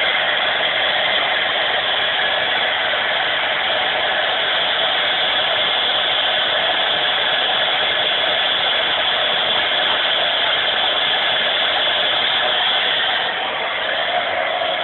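Hair dryer running steadily: a continuous even rush of air, dipping slightly in level near the end.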